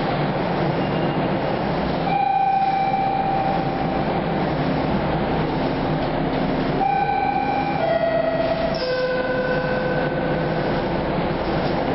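Toronto subway train at the platform, its steady running hum throughout, with a brief high squeal about two seconds in as it comes to a stop. About seven seconds in, a descending three-note door chime sounds, the last note held longest, warning that the doors are about to close.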